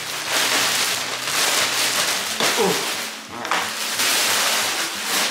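Clear plastic wrapping crinkling and rustling loudly as it is pulled off a fabric carrying bag.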